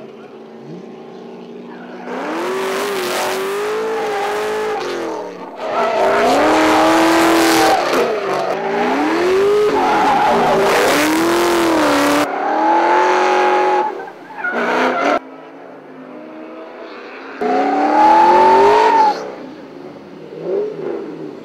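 Drifting Ford Mustang: the engine revs hard and its pitch rises and falls again and again as the throttle is worked mid-slide, with the tyres squealing and hissing under the loud passes. It comes in several separate bursts, the loudest in the middle and a short one near the end, with a lower engine hum in between.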